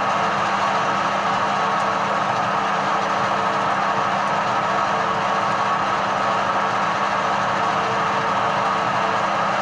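Edgwick metal lathe running steadily, its motor and gear train giving a constant hum with a few steady tones.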